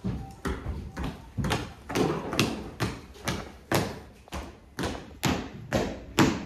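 Feet marching across a stage floor, about two steps a second, steady and even.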